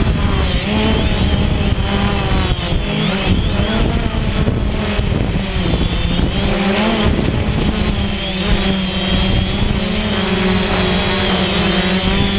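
DJI Phantom quadcopter's electric motors and propellers whining steadily, heard from the camera on the drone. The pitch wavers up and down as it manoeuvres, over a low rush of air.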